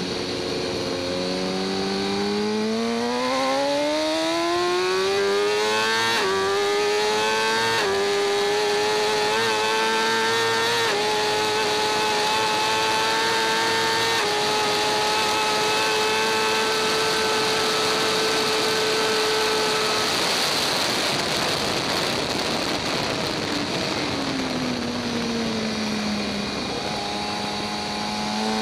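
A 2014 BMW S1000RR's inline-four engine at racing speed, heard onboard. It climbs in pitch through several upshifts for about eight seconds and holds a high, nearly steady note down the straight. About twenty seconds in the throttle closes and the revs fall through downshifts, then pick up again near the end. A steady rush of wind noise runs under it.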